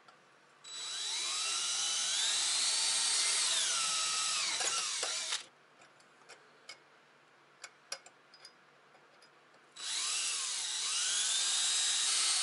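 Cordless drill boring holes through an aluminium bracket: two runs of several seconds each, the motor whine rising as it speeds up and sagging as the bit bites into the metal. A few light clicks come between the runs.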